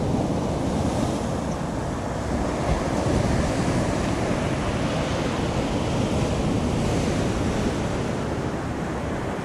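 Steady rushing noise of surf on the beach mixed with wind buffeting the microphone.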